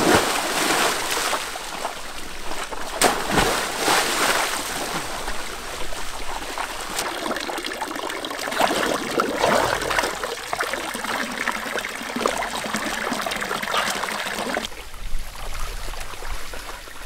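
Water splashing as a person plunges into a pool, with another splash about three seconds in, then water pouring steadily from a bamboo pipe into the pool.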